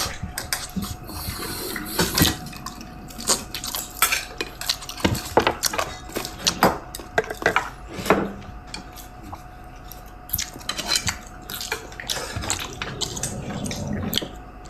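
Bowl and eating utensils clinking and knocking in many irregular sharp clicks, with a faint steady hum underneath.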